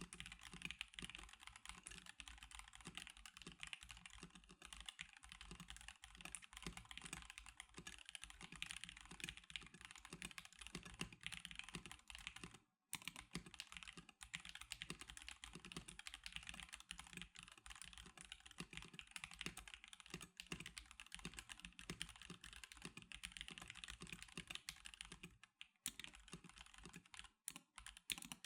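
Continuous fast typing on a stock NK87 Darkshake Edition mechanical keyboard, a dense stream of key clicks and bottom-outs, with a short pause a little before halfway and a few brief breaks near the end.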